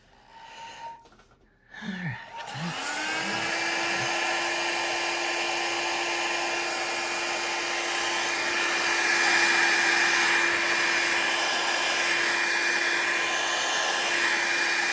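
Revlon 500-watt styling-brush hair dryer switched on about two seconds in, its motor whine rising quickly and settling to a steady pitch, then blowing steadily with an even rush of air.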